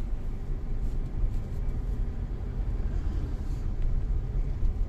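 Steady low rumble of a car heard from inside the cabin, engine and road noise with no other clear event.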